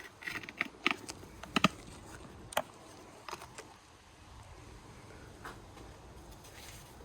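Light metallic clicks and taps from a front brake pad being worked out of a BMW X1 E84's brake caliper, about half a dozen in the first three seconds or so, then only faint handling noise.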